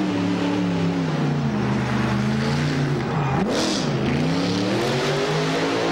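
Monster truck engine revving up and down under load. The pitch sags, drops sharply about three and a half seconds in with a brief rush of noise, then climbs again.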